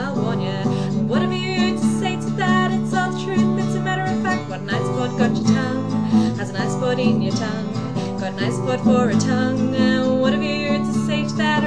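A woman singing with acoustic guitar accompaniment: strummed chords under her voice, which wavers on held notes.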